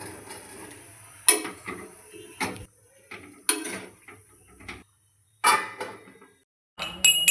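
Kitchen pots, dishes and utensils clattering: about five separate sharp knocks and clinks, irregularly spaced. Each is cut off abruptly by short stretches of dead silence.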